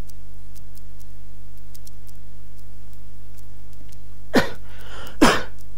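Steady electrical hum on the recording with a few faint keyboard clicks; about four seconds in, a man coughs twice, the second cough louder.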